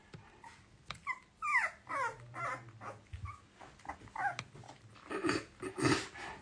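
Great Swiss Mountain Dogs whining: a run of short, falling whines about a second in, then a few louder, shorter sounds near the end.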